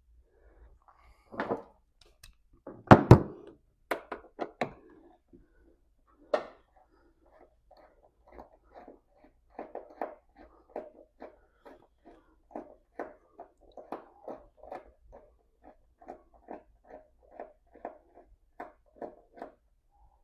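A few handling knocks and clunks, the loudest about three seconds in, then a steady run of short clicks about twice a second from a socket ratchet being worked back and forth on the battery hold-down bolt of a 2013 Jeep Wrangler.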